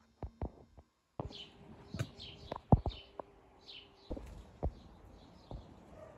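Small birds chirping outdoors, a run of short repeated chirps starting about a second in, with several sharp clicks or knocks scattered among them, the loudest a little under halfway through.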